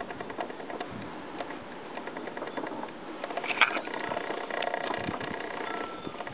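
A small engine running steadily, with a sharp clank about halfway through.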